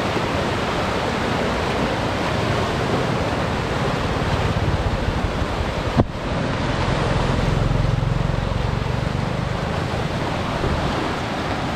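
Swollen floodwater rushing fast over rapids and churning in standing waves, a steady rushing noise. There is a brief break about six seconds in, after which the low rumble is stronger.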